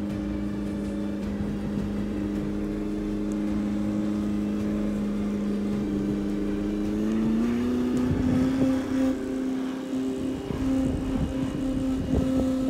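Electric drive motor and gearbox of a 1/8-scale Double Eagle Land Rover Defender RC truck whining steadily as it drives. The pitch steps up a little about seven seconds in as it speeds up. Irregular low rumbling comes in from about eight seconds.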